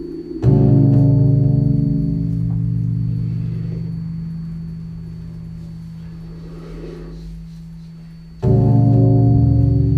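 Live experimental drone music: a loud, low held chord starts suddenly about half a second in and slowly fades away, then a second one hits just as suddenly near the end.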